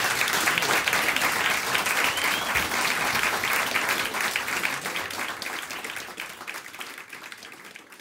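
Audience applauding: dense clapping that thins out and fades away toward the end.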